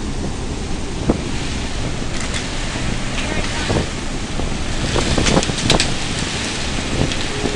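Strong storm wind rushing and buffeting across the microphone. A few sharp knocks and clicks come through, most of them around five to six seconds in.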